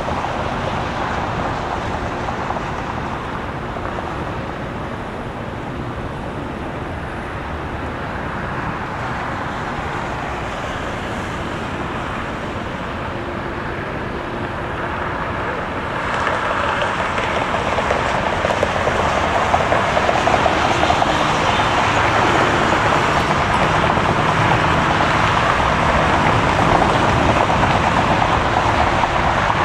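Boeing 787 Dreamliner jet engines running on the ground, a steady rumble and hiss that steps up clearly louder about halfway through as thrust is increased.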